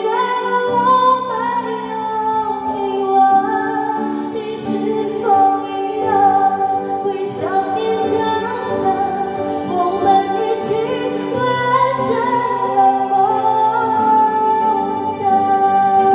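A song: a voice, likely a woman's, singing long held notes over instrumental accompaniment.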